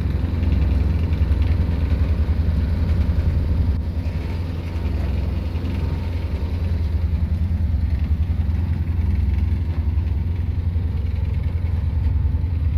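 Boat's inboard engine running steadily, with a low, even throb.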